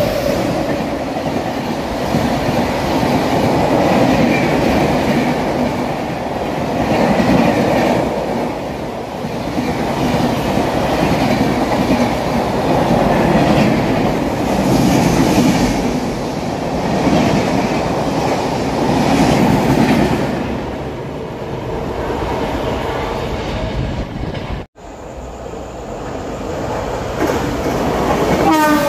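Passenger train coaches running past a platform at speed: a continuous rumble and wheel clatter that swells about every two and a half seconds as each coach goes by. About 25 seconds in, the sound cuts out briefly, then the noise of an approaching train builds.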